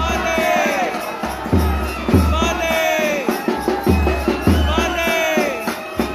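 Procession music with crowd noise: a drum strikes pairs of deep beats about every two and a half seconds, under a repeated phrase that slides downward in pitch.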